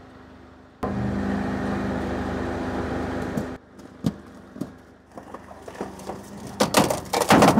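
Dyna SC16 Rapid Split firewood processor running with a steady hum for a few seconds, which stops abruptly. Then comes scattered cracking as a pumpkin is pushed into the splitting wedge, building to loud crunching near the end as the pumpkin splits apart.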